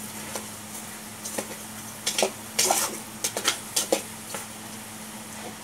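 A metal spatula scraping and knocking irregularly against the side and bottom of a metal cooking pot as chicken pieces are stirred, about half a dozen strokes clustered in the middle. Underneath is a faint, steady sizzle from the chicken sautéing.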